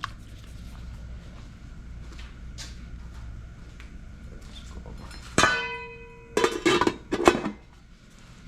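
Metal cookware clanging: one sharp strike that rings for about half a second, about five seconds in, followed by a few quicker metallic clatters, over a steady low hum.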